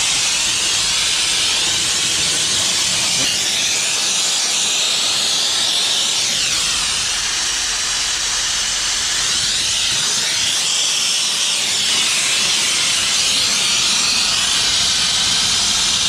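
High-pressure washer jet spraying water into a tractor's radiator core: a loud, steady hiss whose tone shifts slowly as the jet is swept across the fins.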